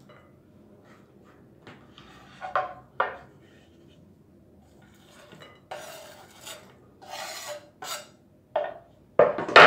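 Chef's knife scraping chopped chocolate and dried fruit off a wooden cutting board into a plate: a few sharp knocks of wood and plate, rasping scrapes of the blade along the board in the middle, and the loudest knocks near the end.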